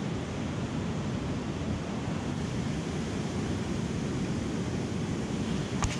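A steady, deep rushing noise with no pitched buzz in it, with a single short click near the end.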